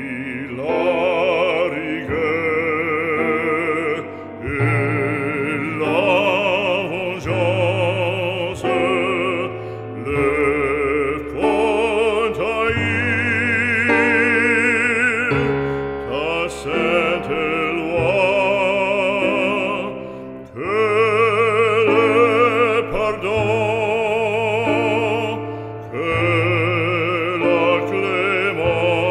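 Background music: an operatic voice sings long notes with wide vibrato over a sustained low accompaniment.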